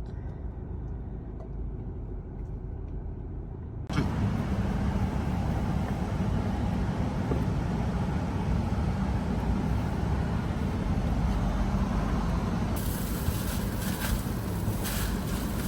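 Steady motor-vehicle noise: a low rumble, then after a sudden jump about four seconds in, louder running noise with a strong low drone, growing brighter and hissier near the end.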